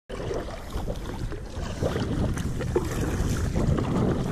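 Wind rumbling on the microphone over the splash and drip of kayak paddle strokes in choppy sea water.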